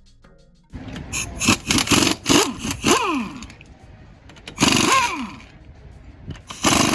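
Pneumatic impact wrench on a car wheel's lug nuts, running in several short bursts; after each burst the tool's whine falls in pitch as it spins down.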